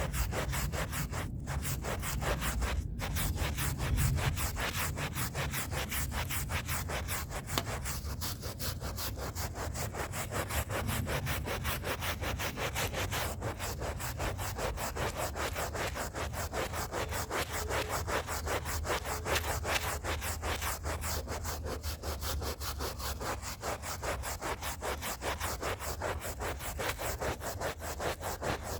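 Stiff hand brush scrubbing a rug's pile in fast, even back-and-forth strokes, bristles rasping on the wet fibres, with a couple of brief pauses near the start.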